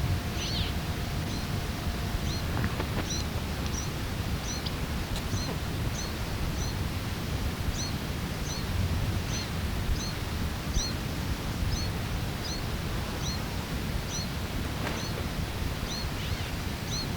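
A small songbird repeating a short, high, upward-flicking call about one and a half times a second, over steady tape hiss and low wind rumble.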